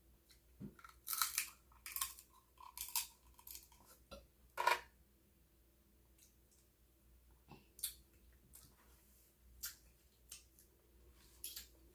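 Sharp cracks and crackles of king crab leg shells being snapped open and eaten, a quick run of them in the first few seconds with the loudest about five seconds in, then a few scattered ones.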